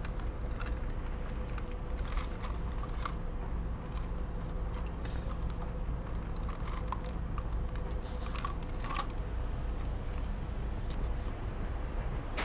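Steady low hum inside a stationary SEPTA regional rail car, with a faint steady tone over it. Scattered light clicks and rattles throughout come from small objects handled close to the microphone.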